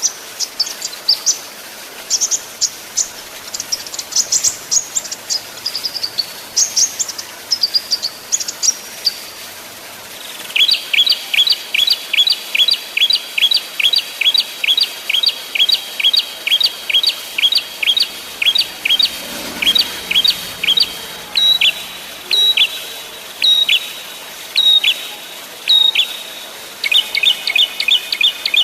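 Small songbirds singing: first a run of sharp, high, irregular chirps. Then, from about ten seconds in, comes a fast, even series of short downward-sweeping whistled notes, about four a second, which slows to spaced single notes and gives way near the end to a rapid trill.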